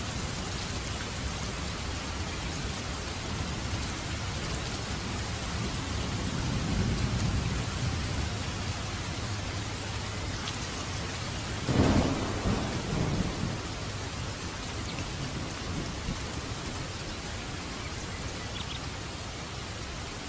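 Steady heavy rain falling, with thunder: a low rumble swells about a third of the way in, then a louder, sharper thunderclap a little past halfway rolls away over a couple of seconds.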